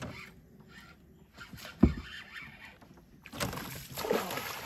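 A single low thump against the canoe about two seconds in, then splashing near the end as a hooked tarpon jumps and thrashes at the surface.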